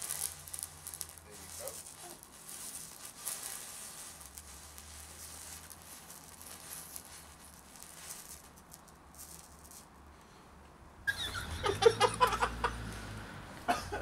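Aluminium–iron oxide thermite burning on a stone slab, hissing and crackling as it throws sparks, dying down over about eight seconds. About eleven seconds in a louder, pitched sound cuts in suddenly.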